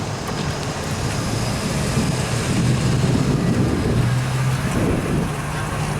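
Car driving slowly: a low engine hum with steady road and tyre noise, the hum rising a little about four seconds in.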